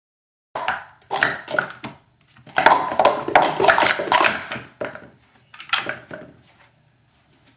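Plastic sport-stacking cups clattering in quick runs of clacks as three 3-cup piles are upstacked and downstacked at speed in a 3-3-3 sequence. The clatter starts about half a second in, is busiest in the middle, and ends with a short last flurry about six seconds in.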